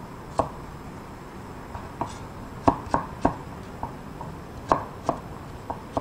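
Kitchen knife chopping a carrot on a wooden cutting board: about ten sharp knocks of the blade striking the board, unevenly spaced.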